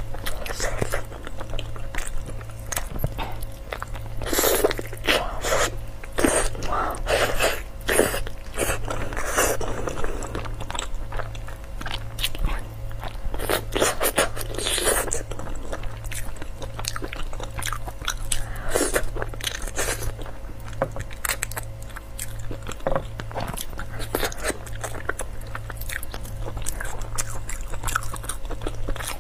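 Close-miked eating sounds of braised pig's trotters: wet chewing, lip smacks and sucking as the skin and meat are bitten and torn from the bone, in an irregular string of clicks and smacks. A steady low hum runs underneath.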